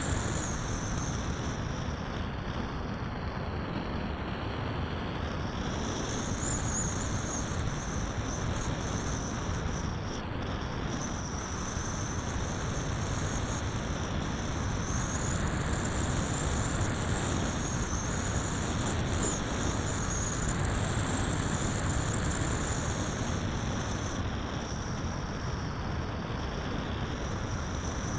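Flight noise heard from a camera on an electric RC sailplane: a steady rush of air with a high whine that rises and falls a few times.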